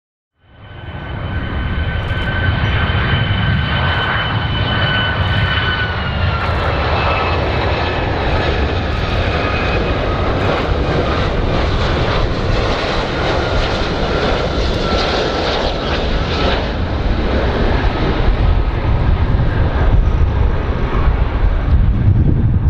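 Airplane engines running loud and steady, a deep rumble with a high whine that drops slightly in pitch about six seconds in. The sound fades in at the start.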